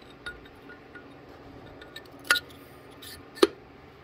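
Valves being slid back into their guides in an LS cylinder head: a few light metallic clicks, the sharpest about three and a half seconds in, as the valve stems go into the guides and the valve heads drop onto their seats.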